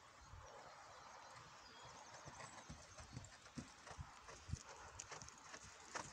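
Faint, soft hoofbeats of a horse trotting on a wood-chip arena surface, coming closer.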